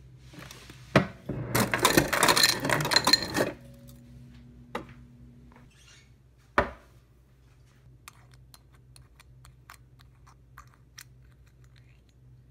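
Refrigerator door ice dispenser dropping ice cubes into a glass tumbler: a click as it starts, then about two seconds of cubes clattering into the glass, followed by a short steady hum. A little later comes a single knock, and then faint small ticks.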